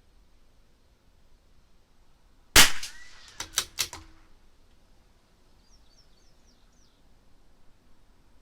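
A single .22 LR rimfire shot from a CZ 457 bolt-action rifle firing SK Semi Auto Rifle ammunition, followed by three quick clicks of the bolt being worked to eject the case and chamber the next round.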